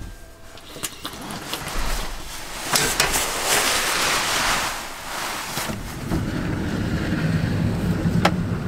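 Rustling and a few knocks from people moving about in a camper van and stepping out of its side door.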